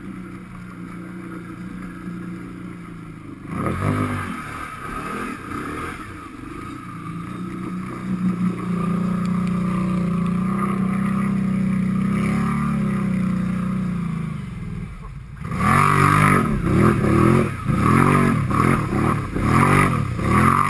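Can-Am 1000 ATV's V-twin engine driven through deep slough water: low, steady revs at first, then held at a steady higher pitch for several seconds. In the last five seconds it is revved hard up and down over and over, about twice a second.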